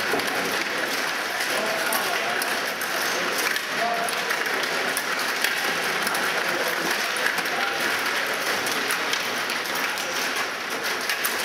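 Stiga table hockey game in play: the rods and plastic players clicking and rattling fast and without pause, over a murmur of voices and the clatter of other tables in the hall.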